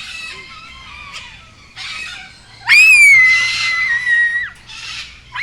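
Cockatoos screeching: several harsh squawks and one long, loud screech about halfway through that rises, holds, then breaks off.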